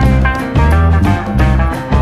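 Instrumental background music, a guitar-led tune over a steady bass line whose notes change about twice a second.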